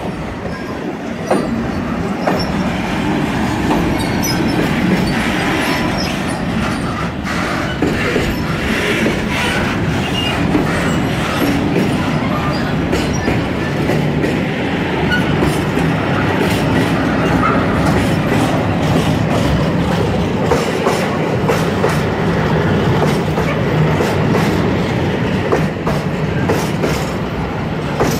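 Freight wagons, tank cars and covered wagons, rolling slowly past close by, with the wheels clacking irregularly over the rail joints over a steady rumble.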